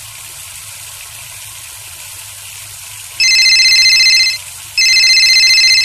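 A telephone ringing twice, each ring a fast trill lasting about a second, starting about three seconds in, over a steady rushing noise.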